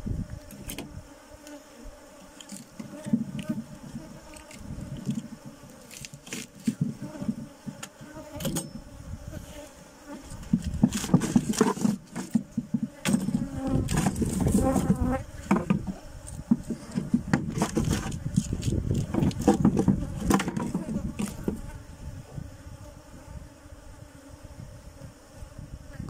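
Honeybees buzzing around an opened hive in a steady hum. Wooden hive frames and boxes click and knock as they are handled, with louder handling noise through the middle.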